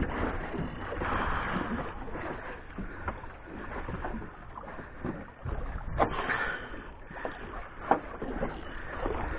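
Small waves lapping and sloshing against the hull of a small boat, with a few sharp knocks about six and eight seconds in.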